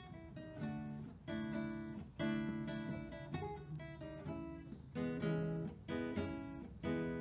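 Classical acoustic guitar playing strummed chords, a new chord struck every half second to a second, each ringing on until the next.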